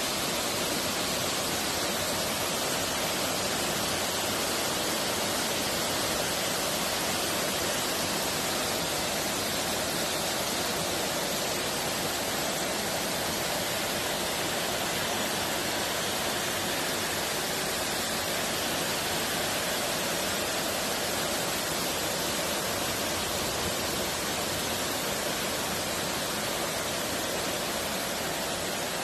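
Heavy rain mixed with hail pelting down, a dense, steady hiss with no breaks.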